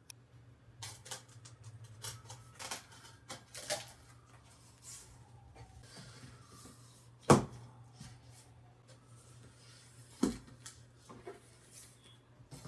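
Cardboard shipping box being opened and handled by hand: scattered scrapes, taps and rustles of cardboard, with a sharp knock about seven seconds in and a second one about ten seconds in.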